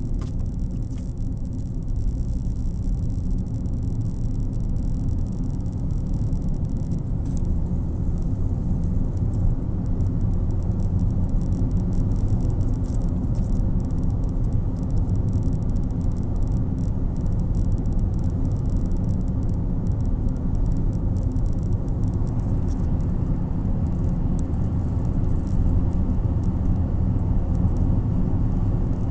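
Steady low rumble of a car's engine and tyres on the road, heard from inside the cabin, growing slightly louder as the car gathers speed.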